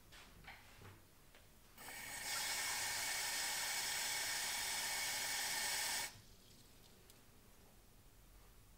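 Kitchen mixer tap turned on about two seconds in, water running steadily for about four seconds, then shut off abruptly.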